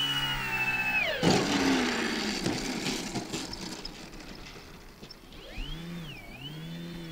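Twin brushless electric motors of a scale RC model bomber whining, then winding down in pitch about a second in as the throttle is cut for touchdown. A knock as the wheels hit the ground follows, with rough rumbling as the model rolls over grass. Near the end the motors whine up and down again briefly as it taxis.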